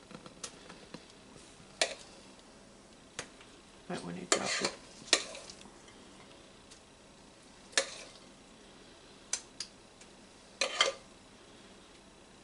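Metal spoon scraping and clinking against a glass mixing bowl while scooping thick sweet potato pie filling into a pie crust. The sound comes as scattered sharp clicks and short scrapes, a second or more apart, with two small clusters about four seconds in and near the end.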